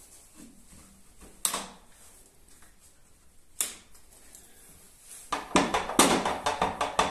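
Knocks and clicks of a pool table cushion rail being worked onto the metal pin of a wooden centre-pocket block: two single knocks, then a fast clatter of knocks from about five seconds in.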